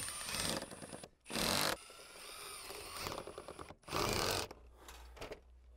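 Cordless drill driving fasteners through Tilcor stone-coated steel roof shingle panels, in three short bursts of about half a second each.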